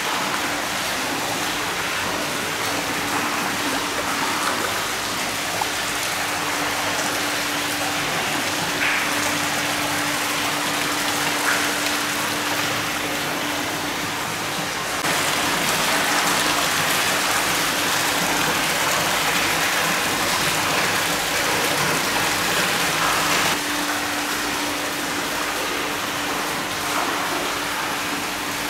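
Water pouring steadily from a pipe spout into a hot-spring bath, a continuous splashing that grows a little louder for several seconds midway.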